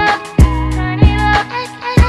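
Background music with a steady beat: sustained melody notes and bass under sharp drum hits about twice a second.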